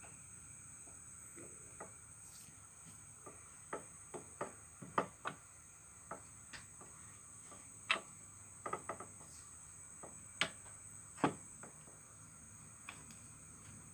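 Irregular sharp metallic clicks and clinks of a Yamaha RX-King's aftermarket clutch housing and bolts being handled and test-fitted by hand, about a dozen scattered taps, over a steady high-pitched chirring.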